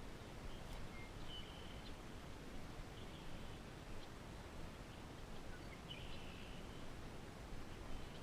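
Faint outdoor ambience with a steady low rumble of wind and background noise, and a few short, high bird calls about a second in, three seconds in and six seconds in.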